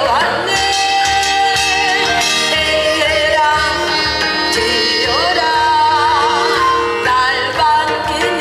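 A woman singing a Korean folk-style song into a microphone with vibrato and pitch glides, over an amplified backing track with a steady beat.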